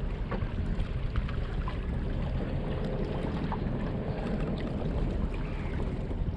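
Steady wind rumbling on the microphone over lapping harbour water, with a few faint ticks.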